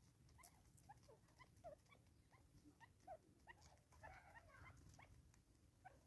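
Francolins pecking seed off a tree stump: faint scattered taps and soft short chirps, busier about four seconds in.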